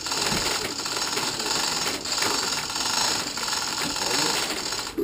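Handheld power tool running almost continuously with a loud, rapid mechanical chatter, used on the boat's engine during its removal.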